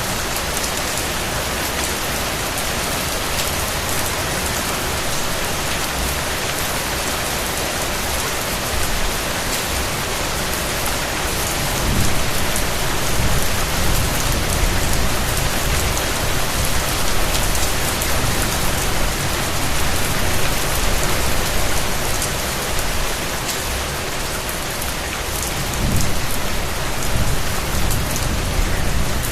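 Steady rain falling on a surface, a dense even hiss of many drops with fine ticks of individual drops. A low rumble swells in about twelve seconds in and again near the end, making the sound slightly louder.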